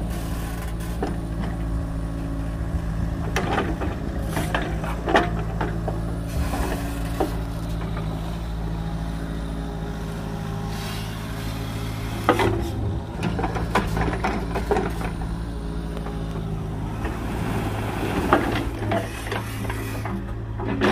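Small agricultural excavator's engine running steadily under work, with scattered knocks and scrapes from the machine working.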